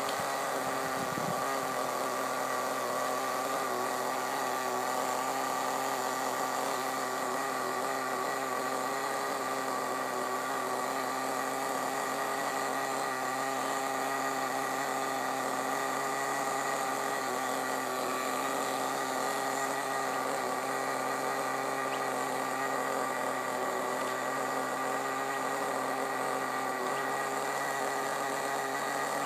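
Small nitro glow engine of a 1:10 HSP off-road RC buggy idling at a constant pitch, a steady buzz with no revving.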